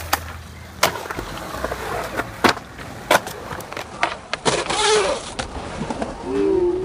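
Skateboard wheels rolling over a concrete skatepark bowl, with several sharp clacks as the board's tail and wheels strike the concrete and coping.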